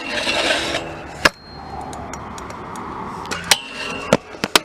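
Stunt scooter riding on skatepark concrete: wheels rolling with a hiss, broken by sharp clacks of wheels and deck hitting the ground, one about a second in and several in quick succession near the end.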